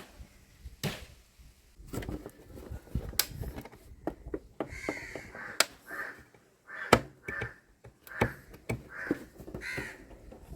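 Crows cawing repeatedly, about once a second in the second half, over scattered sharp clicks and knocks.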